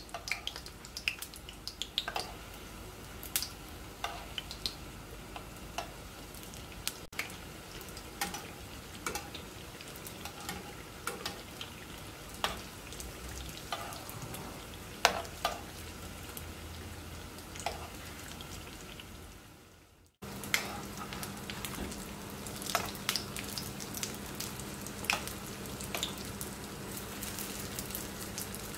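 Spring rolls shallow-frying in hot oil in a nonstick frying pan: a steady sizzle with scattered crackles and pops. The sound briefly drops out about two-thirds of the way through, then the sizzle resumes.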